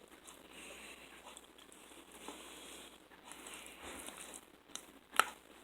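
Faint eating and handling noises from a takeout meal, with soft rustling and crinkling throughout and one sharp click a little after five seconds in.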